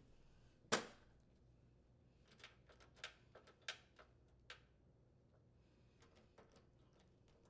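Screwdriver driving and tightening screws into an oven door's inner panel, heard as faint scattered clicks: one sharper click about a second in, a run of small clicks in the middle, and a few faint ones near the end.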